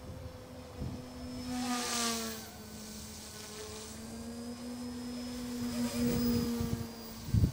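OMP Hobby M1 mini RC helicopter in flight: a steady whine from its brushless direct-drive rotor motors and spinning blades, the pitch drifting slightly as it manoeuvres. A few low thumps come near the end.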